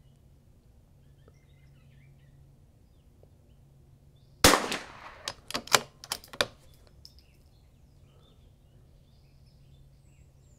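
A single .22LR rimfire shot from a Vudoo V-22 bolt-action rifle about four seconds in, followed over the next two seconds by a few sharp metallic clicks as the bolt is worked.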